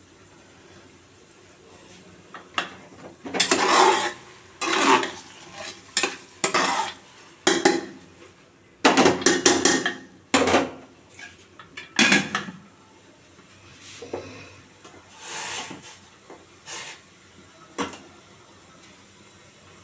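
Aluminium pressure cooker and its lid being handled on a gas stove: a run of irregular metal clatters, knocks and scrapes. The loudest come around nine to ten and twelve seconds in, and they die away shortly before the end.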